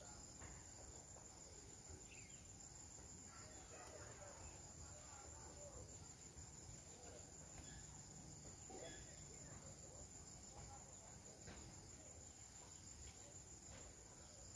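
Faint, steady high-pitched chirring of insects, with soft rustling of leaves and stems as roselle (gongura) leaves are picked by hand.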